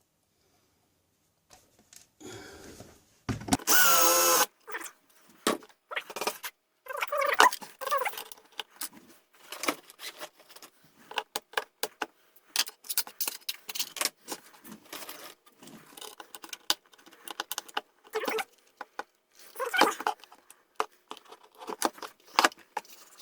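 Plastic power strip housing being handled and prised apart after its rivets were drilled out: irregular clicks, knocks and rattles, with a short loud burst about four seconds in.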